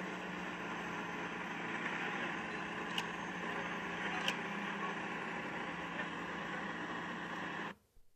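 Car-meet video soundtrack, a steady bed of street noise and car engines running, played back from a phone. Two sharp clicks come about three and four seconds in. The playback sound cuts off abruptly near the end as the audio output is switched over to the monitor.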